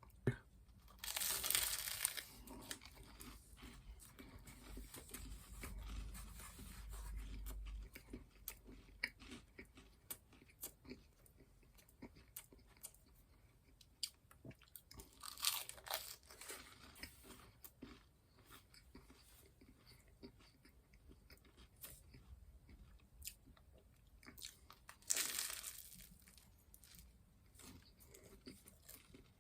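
Close-up eating sounds of a person biting and chewing mini cheeseburgers: soft chewing with many small wet mouth clicks, broken by three louder noisy bursts about a second long.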